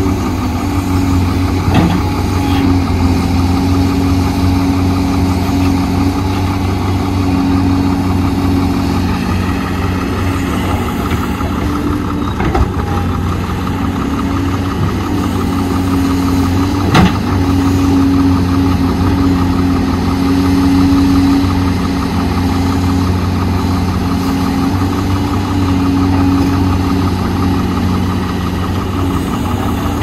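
Heavy diesel engine of earthmoving machinery running steadily, its note shifting slightly now and then, with three short sharp knocks spread through.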